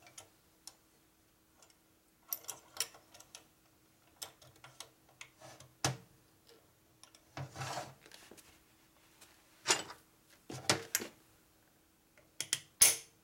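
Irregular metal clicks and clunks from a 1942 Harley-Davidson WLC transmission's shifter mechanism as the shift shaft is worked through the gears on the bench, with a few louder clacks near the end.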